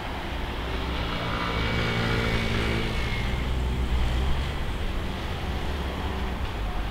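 A car driving past on the street: its engine hum and tyre noise swell to the loudest about three to four seconds in, then fade, and another car is coming up near the end.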